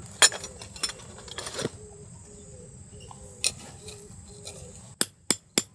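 A few scattered clicks and knocks as tent gear is handled. About five seconds in, a hammer starts driving a tent peg into gravel with a quick, even run of sharp strikes, about three a second.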